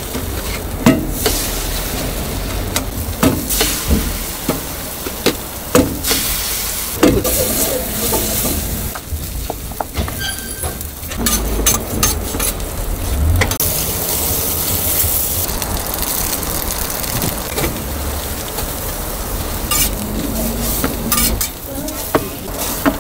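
Egg mixture and bread frying on a hot flat-top griddle: a steady sizzle, broken by frequent short clacks and scrapes of a metal spatula and utensils on the plate.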